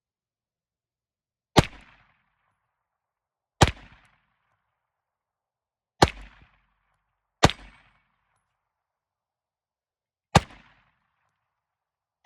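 SAR USA CM9 9mm pistol fired in slow single shots: five shots spaced about one and a half to three seconds apart, each with a brief echo, and a sixth right at the end.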